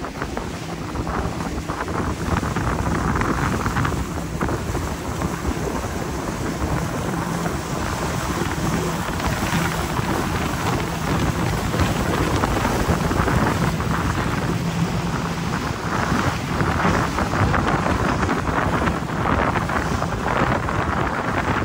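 Wind buffeting the microphone and water rushing past the hull of a fishing boat running at speed, with the steady drone of its Mercury outboard motor underneath.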